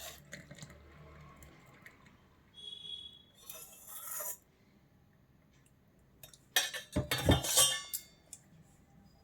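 Metal kitchen vessels and a strainer clinking and knocking while the boiled kashayam is strained. There is a short metallic ring about three seconds in, a brief rush just after it, and a louder clatter around seven seconds in.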